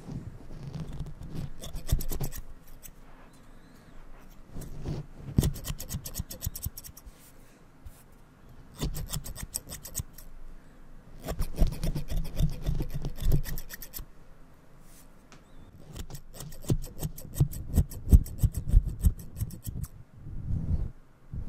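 Hair-cutting scissors snipping close to the microphone in several bursts of rapid snips with short pauses between, blade strokes cutting through and rubbing against the microphone's fluffy furry cover, which stands in for hair.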